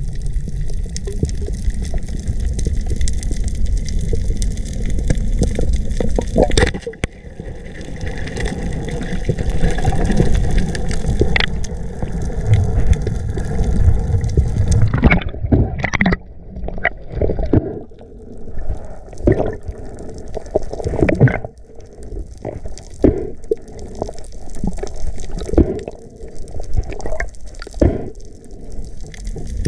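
Water sloshing and gurgling around the camera in the sea, heavy and rumbling at first, then broken by irregular sharp knocks and splashes from about halfway through.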